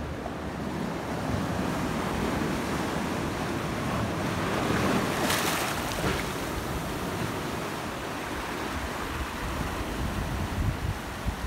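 Small waves washing up over intertidal rocks and foaming, the surf swelling to its loudest about five seconds in, with a brief hissing rush, then easing back.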